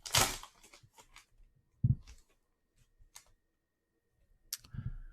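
A brief crinkle of a foil trading-card pack wrapper, then soft clicks and taps of cards being handled, with a low thump about two seconds in and a sharper click near the end.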